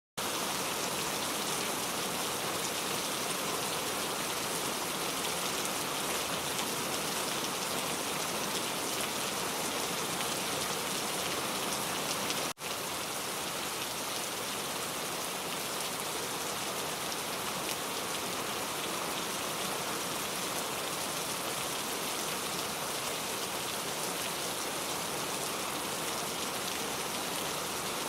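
Heavy summer rain, a steady downpour, falling without a let-up, with a split-second break about halfway through.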